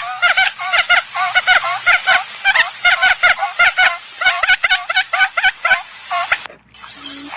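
Forest quail lure call: rapid runs of chattering, bent notes repeated over and over, used to draw wild quail in. The calling stops suddenly about six and a half seconds in.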